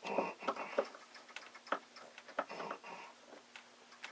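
Screwdriver working the connection screw on an aluminium Mosley TA-33 antenna trap: light, irregular metallic clicks and short scrapes.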